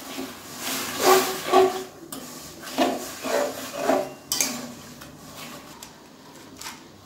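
Metal spatula scraping and knocking against a metal kadai while lumps of date-palm jaggery are stirred into water to melt, about six strokes in the first four seconds. After that it is quieter, with a faint hiss from the heating pan.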